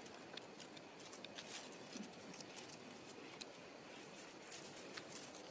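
Faint, sparse ticks and light rustling, like dry twigs and debris on a forest floor being disturbed.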